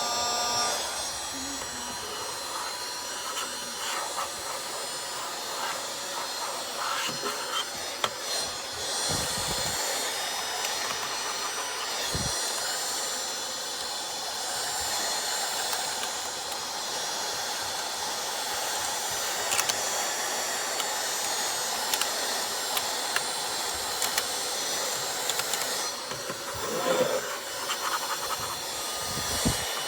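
Cordless mini vacuum cleaner running, a steady airy hiss with a high motor whine, with scattered clicks and knocks throughout.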